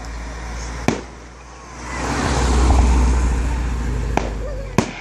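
Fireworks going off: a sharp bang about a second in and two more near the end, with a louder swelling rush of noise rising and fading in the middle.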